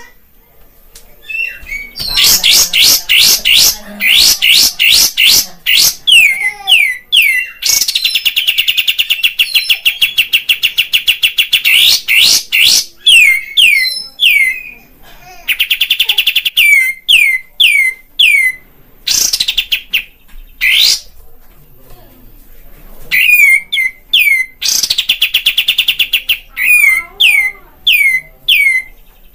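Kapas tembak bulbul singing loudly: long, very rapid chattering trills alternating with runs of sharp, quickly falling whistled notes. It is a lure song, played to provoke caged birds of the same kind into singing.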